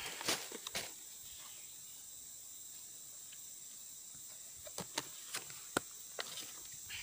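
Scattered sharp light clicks and taps from a clear plastic food container being handled: two in the first second, then a cluster about two-thirds of the way through. A steady high insect drone runs underneath.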